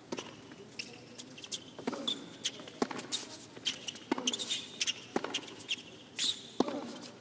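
Tennis rally on a hard court: sharp racket strikes on the ball, one every second or so, with short high sneaker squeaks on the court surface between shots.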